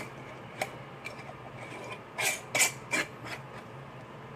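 Glassware being handled on a bench: a glass jar with a screw lid is fiddled with, giving a single click about half a second in and then a cluster of three sharper clicks and scrapes around two to three seconds in.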